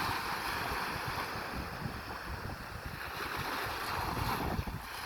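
Sea waves breaking and washing on the shore, swelling and easing, with wind gusting across the microphone in a low rumble.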